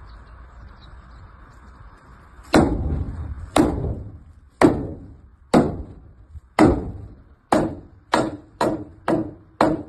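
Heavy hammer blows knocking at the cut wooden roof post. They start about two and a half seconds in at about one a second and quicken to about two a second near the end, each with a short ringing knock.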